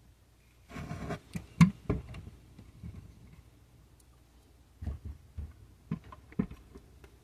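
Handling noise from a diecast model trike being turned in the hands: a brief rustle about a second in, then scattered light clicks and knocks, the loudest near the start.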